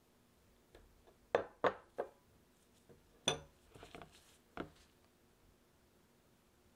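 A stainless-steel mesh sieve and a flour container clinking and knocking against each other and the rim of a ceramic mixing bowl as the flour is tipped in. There are about half a dozen short, sharp knocks, with a quick run of three about a second and a half in and a few more scattered up to about two-thirds of the way through.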